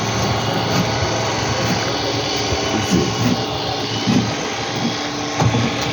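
Steady machine noise with a constant low hum, like a motor or engine running, and a few faint knocks.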